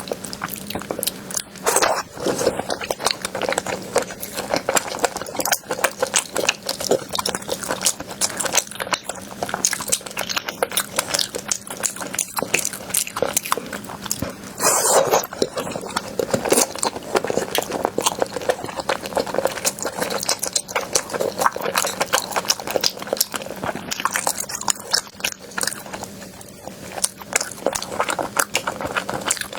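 A person biting and chewing crunchy food close to the microphone: a dense, continuous run of crisp crunches, with louder bites about two seconds in and about halfway through.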